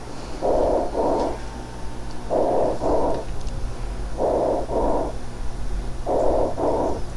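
Tubular (bronchial) breath sound from a lung auscultation recording: about one breath every two seconds, each a harsh inspiration followed by an expiration of almost the same length, with no crackles, over a steady low hum. It is the sign of consolidated lung around a resolving pneumonia, where the remaining restriction keeps inspiration short.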